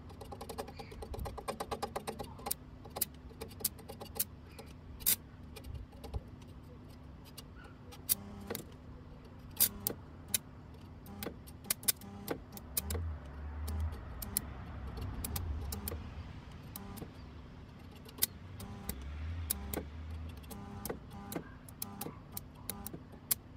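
Stick welding with a 2 mm E7018 electrode: the arc crackles and pops irregularly over a steady low hum, with a couple of heavier low surges. The 2 mm rods run poorly for this welder.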